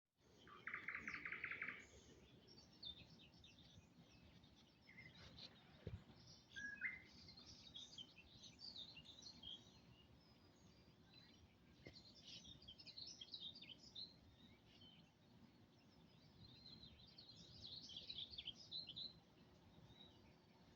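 Faint small birds chirping and singing in short scattered phrases, with a louder rapid trill about a second in and a single soft knock around six seconds.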